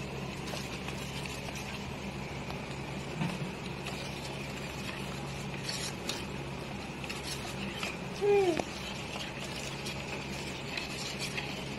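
Metal spoon stirring a thin white mixture in a steel bowl, with light scraping and a few faint clinks against the metal.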